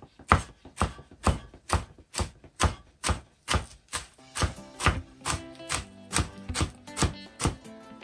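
Damascus-steel chef's knife chopping a bunch of fresh parsley, cilantro and dill on a cutting board, a steady rhythm of about two chops a second. Background music comes in under the chopping about halfway through.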